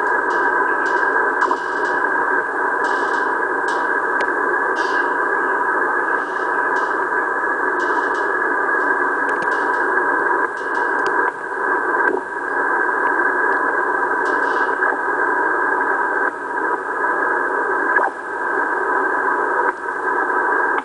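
Heavy QRM on the 20 m amateur band, heard through an Icom IC-9100 transceiver's receiver in upper sideband: steady noise with several steady tones in it, broken by brief dips. The uploader suspects it may be a radar signal.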